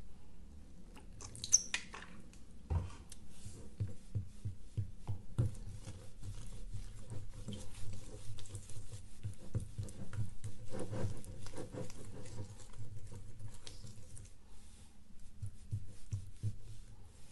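Glue slime being stirred with a small plastic spoon in a bowl: an irregular run of soft sticky clicks and squelches as the neon pink mixture thickens, with one sharper click about one and a half seconds in.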